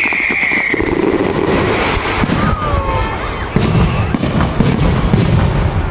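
Aerial firework shells bursting overhead: a rapid run of sharp bangs and crackles, heaviest in the second half.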